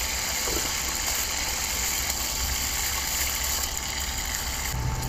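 Steady hiss of a camp stove burner under a hot frying pan, with raw meat sizzling as it goes into the pan. Near the end the hiss drops a little and a low hum comes in.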